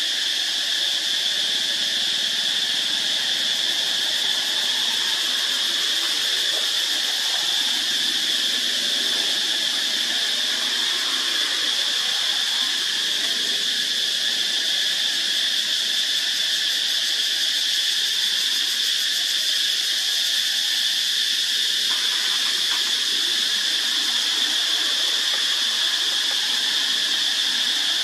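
Very noisy chorus of cicadas: a continuous high, shrill drone that holds steady without a break.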